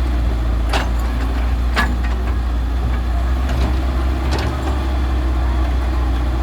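Heavy diesel engine running steadily with a deep drone, broken by three sharp knocks spread over the first few seconds.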